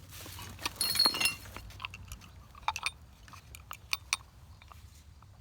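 Small metal candle holders and other salvaged junk clinking and jangling together as they are handled, loudest about a second in, followed by scattered light clicks and taps.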